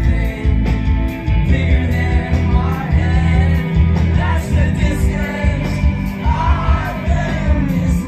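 Live rock band playing loud through an outdoor PA: electric guitars, bass guitar and drums, with singing over them.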